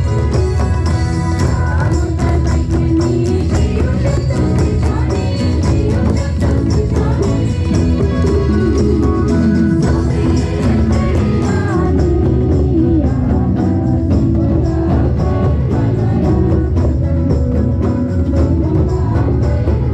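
Live Nagpuri band music: mandar barrel drums and an electronic drum pad struck with sticks keep a steady beat under acoustic and electric guitars.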